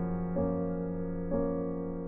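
Background music: soft piano chords, a new chord struck about once a second and each left to ring and fade.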